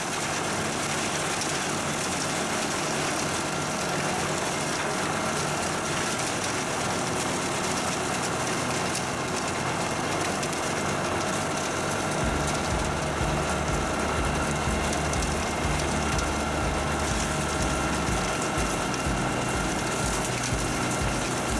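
Large industrial wood-chipping machine running with a steady mechanical noise. A deeper low rumble joins about halfway through.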